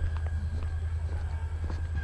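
Footsteps of someone walking along a park path, a few soft steps, over a steady low rumble and a faint steady high tone.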